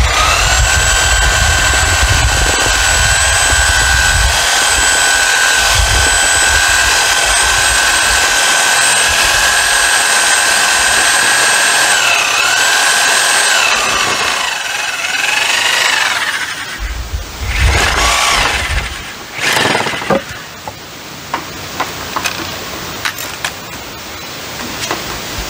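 Corded reciprocating saw cutting through a 4x4 wooden post to finish a notch. The motor spins up and runs steadily with a sawing rasp, dips once under load and winds down after about 14 seconds. A shorter second run follows, then light knocks of the wood being handled.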